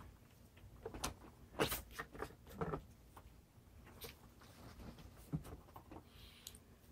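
Knocks, clicks and rustling of a Makita EA6100P chainsaw being handled and laid on its side on a towel-covered table, with a cluster of the loudest knocks about two seconds in and a few lighter clicks after.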